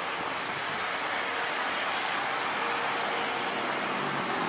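Jet airliner engines: a steady rushing roar with a faint steady hum, growing slightly louder as the plane approaches.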